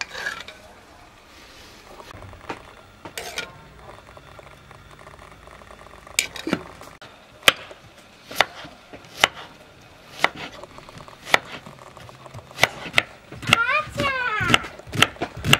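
Knife dicing an onion on a wooden cutting board: sharp knocks of the blade on the board, about one a second from about six seconds in, coming faster near the end.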